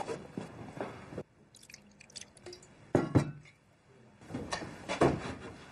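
A person drinking water from a cup, gulping, among small clinks and knocks, with a louder thump about three seconds in.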